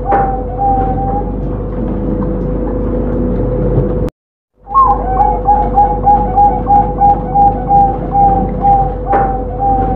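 Zebra dove (perkutut) singing: a run of short, evenly spaced coos, about four a second, that stops about a second in. After a pause and a brief cut-out of the audio about four seconds in, a long run of the same coos follows, over a steady hum.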